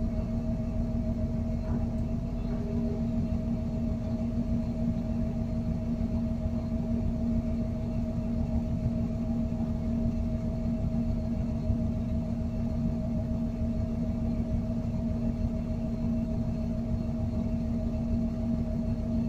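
Crane engine running in a steady drone while it hoists a steel pipe pile, a constant hum over a low rumble.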